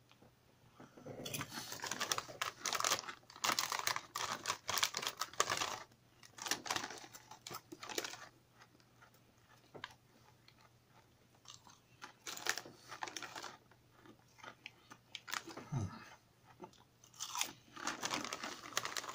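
A person biting into and chewing hand-cooked potato crisps: crisp, crackling crunches in irregular clusters, busiest over the first several seconds, then coming in shorter spells with quiet gaps between mouthfuls.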